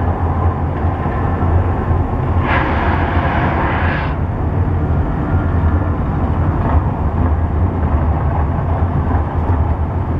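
Steady low rumble of wind and distant street traffic heard from high above a busy street. A brief hiss comes in about two and a half seconds in and lasts about a second and a half.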